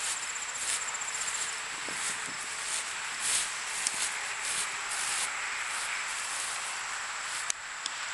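Insects chirping, a steady high trill with short pulses repeating about once or twice a second. A single sharp crack near the end.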